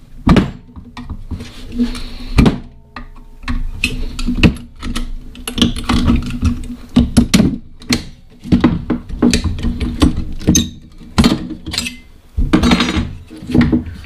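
Irregular knocks and clanks of hand tools against metal parts as a microwave oven's magnetron is taken apart.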